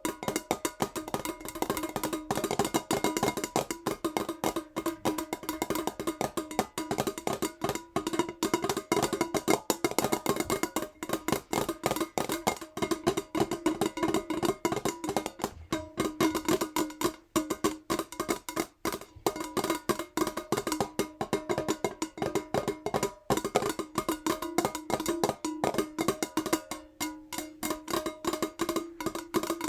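Fingernails tapping fast on a metal jar, a dense run of quick clicks with the jar ringing at a few steady pitches. The tapping thins out briefly about two-thirds of the way through.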